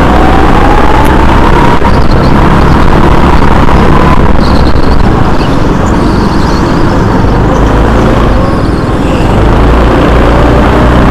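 Go-kart motor running hard in a race, its pitch rising as the kart accelerates for about four seconds, easing off, then rising again near the end.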